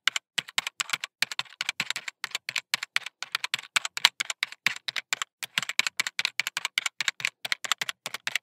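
Rapid, uneven clicking like keyboard typing, several clicks a second, with dead silence between the clicks.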